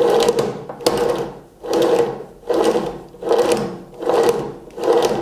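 The planer-thicknesser's feed drive (roller chain, sprockets and plastic gear) spun by a cordless screwdriver, whirring and rattling in surges a little over once a second. It does not sound normal: the owner finds the plastic gear sitting crooked and wobbling, rubbing on the shaft and about to block.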